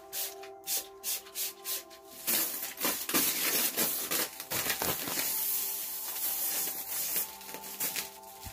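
Dried palm fronds brushed and rustled close to the microphone: short brushing strokes about twice a second, then a continuous dry rustle for about five seconds, then strokes again. Soft ambient music with sustained tones plays underneath.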